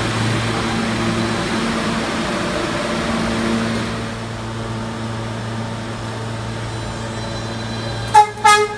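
R160 New York City subway train humming steadily, then two short blasts of the train's horn near the end.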